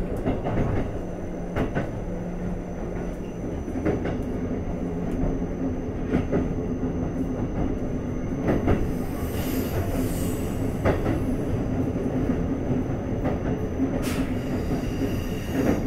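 Keikyu N1000 series electric train (Toyo IGBT VVVF-controlled) running at speed, heard from inside the car: a steady wheel-and-track rumble with a rail-joint click about every two seconds. A brief high wheel squeal comes a little past halfway.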